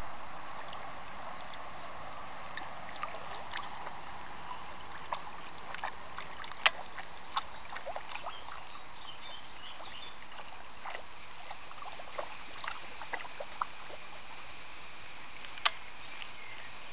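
Dachshund wading in shallow lake water: light splashing and sloshing with scattered short, sharp splashes, the loudest a little before halfway and another near the end.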